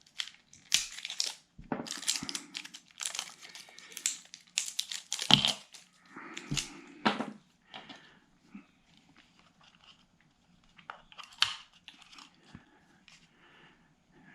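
Hands handling small plastic parts and packaging: irregular crinkling rustles with sharp clicks and knocks, busiest for the first seven seconds or so, then sparser and fainter.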